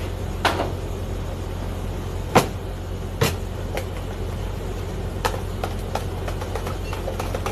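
Steady low hum of a commercial kitchen's extraction hood and ventilation. Over it come scattered sharp knocks and clinks of utensils and plastic containers being handled: a few spaced ones early, then quicker small ticks toward the end.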